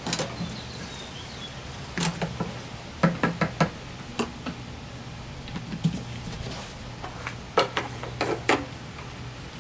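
Scattered plastic clicks and knocks from a gas can's spout and a fuel tank cap being handled while fresh gasoline is poured into a small engine's plastic tank. Near the end comes a cluster of clicks as the tank cap is put back on.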